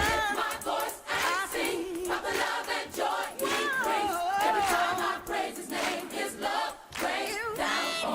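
Gospel choir singing with little or no instrumental backing; the bass drops out at the start, leaving the voices rising and falling over a sparse accompaniment.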